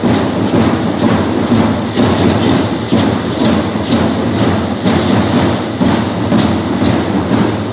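Matachines dance percussion: a steady drum beat with shaken rattles and the dancers' stepping, pulsing at about two beats a second.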